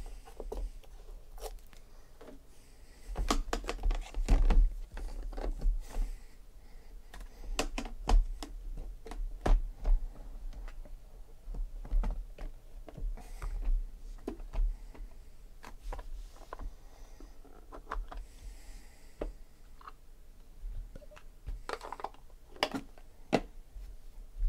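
Handling noise from an aluminum briefcase-style card case and its cardboard box: irregular clicks, taps and knocks as the metal case is tipped, turned and set down, with louder clusters a few seconds in and near the end.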